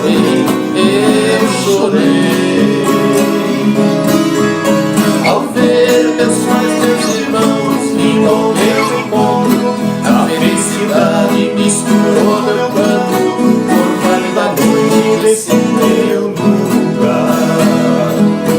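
Acoustic Brazilian country (sertanejo) song in an instrumental passage, led by plucked acoustic guitar strings.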